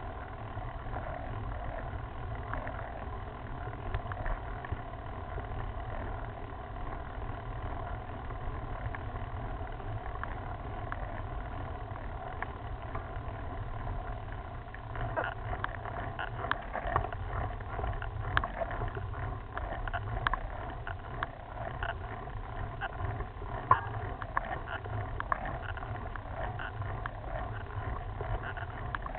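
Steady rumble and rattle of a road bike climbing on rough, patched asphalt, picked up through a bike-mounted camera: tyre and road vibration, with scattered sharp clicks and rattles from about halfway through.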